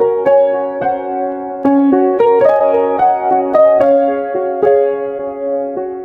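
Background piano music: a slow melody of held notes over sustained chords.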